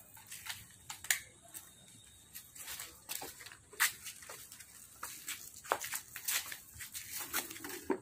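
Pressure-washer water spattering onto a car and wet ground, heard as irregular sharp crackles and spatters.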